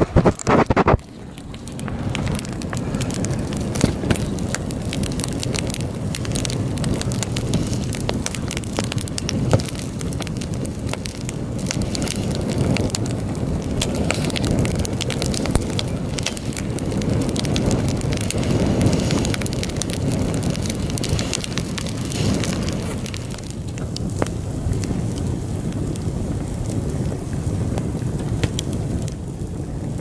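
Wood campfire burning, with many small irregular crackles and pops over a steady low rumble. A few loud knocks come in the first second.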